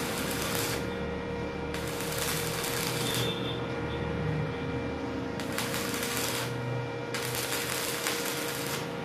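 Stick-welding arc crackling and sizzling in about four bursts of a second or so each, with short breaks between as the arc is struck and broken. A steady hum runs underneath.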